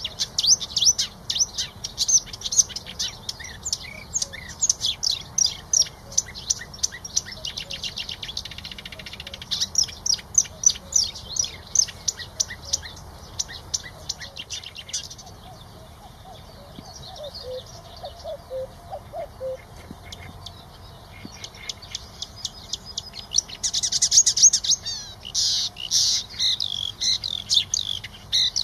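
Bird song: rapid, high-pitched chirps and trills, dense for the first half, thinning out in the middle with a few faint lower notes, then dense again near the end.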